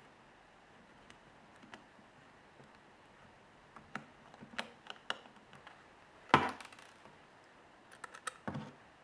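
Scattered small clicks and taps of a precision screwdriver and small metal parts being handled while unscrewing an iPhone 3G's internal screws, with one louder knock about six seconds in and a quick run of clicks near the end.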